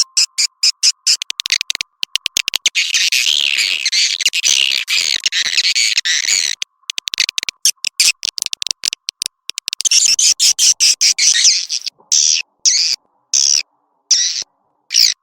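Swiftlet lure recording: many edible-nest swiftlets calling in rapid high chirps and twittering clicks, thickening into dense chatter twice, then broken into short bursts near the end. A faint steady tone sits beneath the calls.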